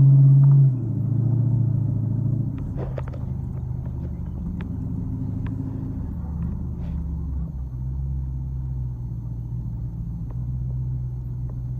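Dodge Challenger R/T's V8 engine heard from inside the cabin while driving: a loud low engine tone that eases off about a second in, then settles into a steady low drone. A few faint short ticks sound over it.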